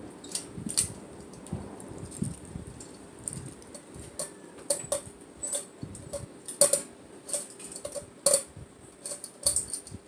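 Metal bead pull chain of a Hunter Discovery ceiling fan clicking and jingling as a hand handles it, a run of sharp irregular clicks, over a steady faint hum from the spinning fan.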